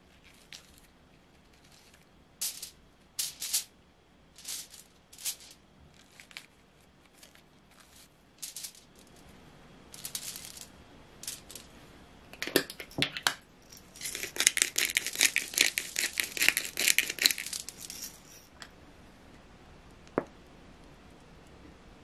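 Maitake mushrooms pulled apart by hand over aluminium foil: short, crisp tearing and rustling sounds. Then, a little past the middle, several seconds of dense rapid rattling as coarse black pepper goes onto the mushrooms.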